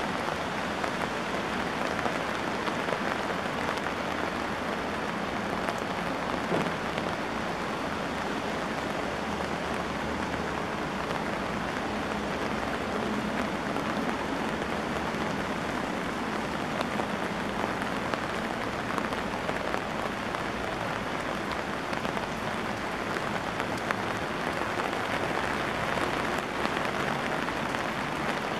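Heavy rain falling steadily on a wet paved street, an even, unbroken hiss of drops.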